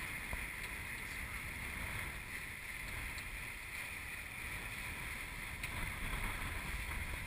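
Steady rush of water hissing past the hulls of an EDEL 35 sailing catamaran going fast on a reach, with wind buffeting the GoPro's microphone as a low rumble underneath.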